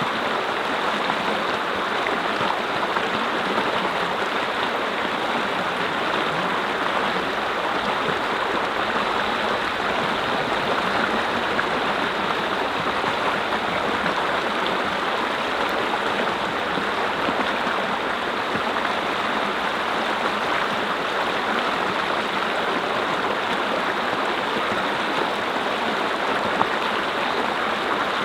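Mountain brook flowing steadily over rocks, a constant rushing and gurgling of water.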